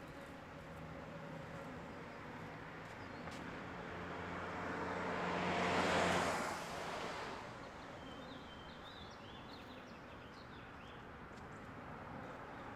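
A car passing on the street, its engine and tyre noise swelling to a peak about six seconds in and then fading away, over a low steady hum.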